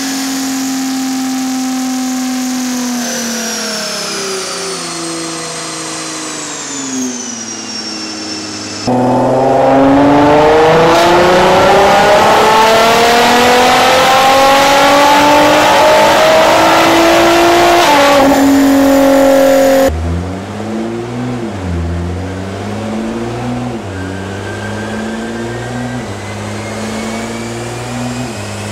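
Nissan GT-R R35's 3.8-litre twin-turbo V6 on a four-wheel-drive chassis dyno. First the revs fall away with a high whine winding down, then a loud full-throttle pull with the pitch climbing steadily for about nine seconds. After that comes a cut to the engine idling with short throttle blips.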